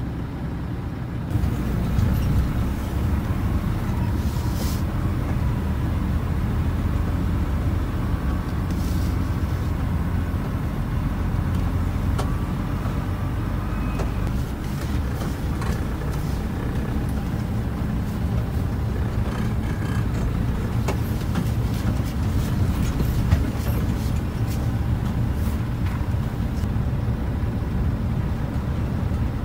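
Semi-truck diesel engine running at low speed, heard from inside the cab as the rig moves slowly: a steady low rumble that gets louder about a second in, with a few faint clicks.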